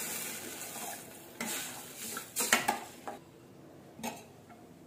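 Water poured into a hot steel pan of fried masala, sizzling with a hiss that dies away within about the first second. Then a metal spatula stirs the mix, clinking against the pan a few times.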